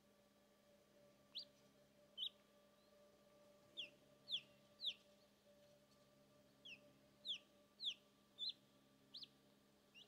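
Unhatched chick peeping from inside its egg: about a dozen short, high peeps that each fall in pitch, some coming in quick pairs, over a faint steady hum. A chick calling from inside the shell is close to hatching.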